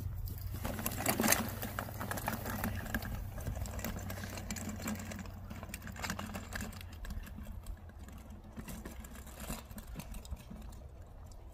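Wheels and frame of a collapsible wagon rattling as a dog pulls it over grass: a fast, continuous run of small clicks over a low rumble, growing fainter as the wagon moves away.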